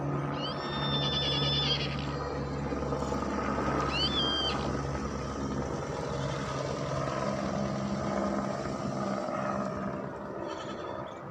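Steady low engine drone, with two high-pitched animal calls over it: a longer one near the start and a shorter one about four seconds in.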